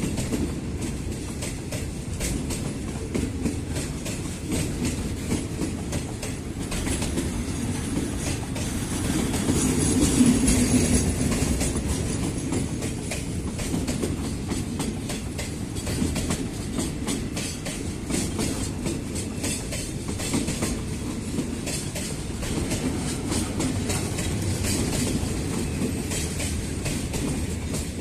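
Railway oil tank wagons of a freight train rolling past at close range, steel wheels clicking rhythmically over the rail joints with a steady rumble; loudest about ten seconds in.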